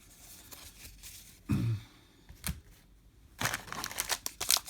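Foil wrapper of a baseball card pack crinkling and tearing as the pack is opened, starting about three and a half seconds in and continuing as rapid crackling.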